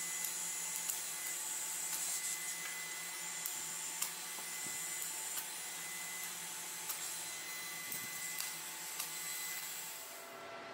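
TIG welding arc on a stainless-steel sheet seam: a steady, even noise with a few small clicks, cutting off about ten seconds in.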